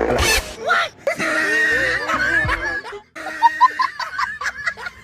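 Snickering laughter mixed with snatches of music and short comic sound-effect blips, layered in an edit.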